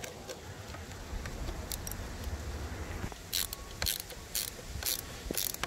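A 10 mm ratcheting wrench clicking in short bursts, about two a second, as it tightens the nut on a car battery's terminal clamp. The clicking starts about halfway in.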